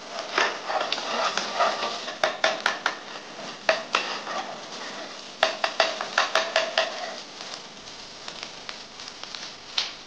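Metal spatula scraping and clacking against a nonstick pan while stirring and breaking up scrambled eggs. There is a run of sharp taps about two seconds in and another about five and a half seconds in, then the stirring quiets down.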